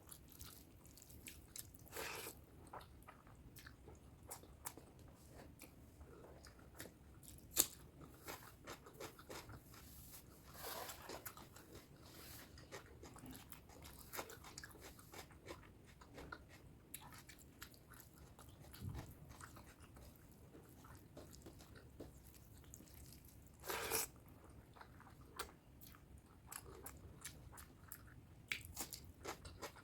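Close-miked mouth sounds of a person eating spicy pork curry and rice: soft chewing with wet mouth clicks, and a few louder sharp bites or clatters now and then.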